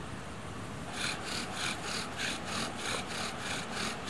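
Wooden bow-drill spindle grinding in a hearth board as the bow is drawn back and forth: a regular rasping that starts about a second in, about three strokes a second.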